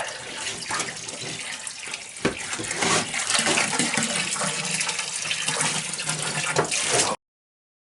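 Fresh water rushing into a boat's tank as it is filled for a leak test, with a brief knock about two seconds in. The sound cuts off abruptly near the end.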